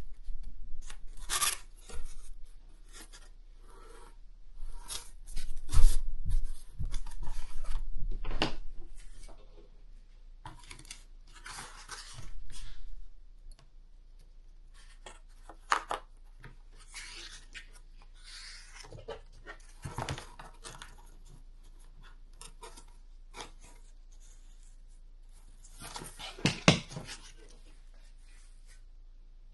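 Cardboard being cut and handled in irregular bursts of scraping and cutting noise, with sharper knocks about six seconds in, a click about halfway and a louder cluster near the end.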